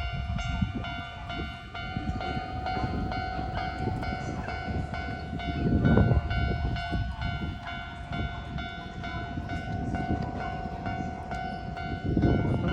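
Japanese level-crossing warning bell ringing steadily while a train rumbles and clatters past, the rumble swelling about six seconds in and again near the end.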